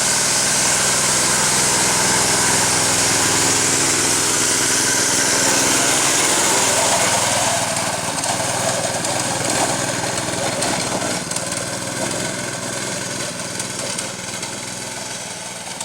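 Small four-wheeler's engine running as the ATV is ridden, loud for the first half and then fading as it moves away.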